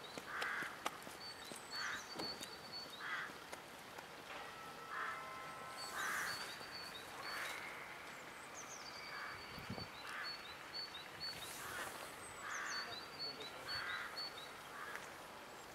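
Birds calling over faint street noise: a string of short rough calls about once a second, and a small bird's high phrase that opens with a downward swoop, repeating every few seconds.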